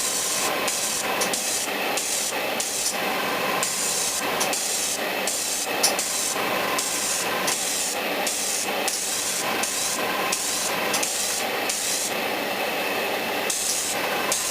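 Airbrush spraying in short bursts, its high hiss switching on and off many times as the trigger is worked, over a steady background hum.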